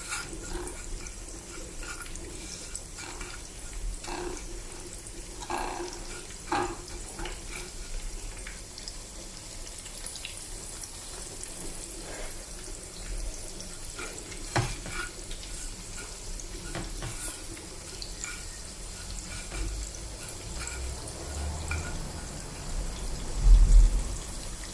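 Breaded chicken fillets frying in hot oil: a steady sizzle with scattered crackles and pops. A low thump comes near the end.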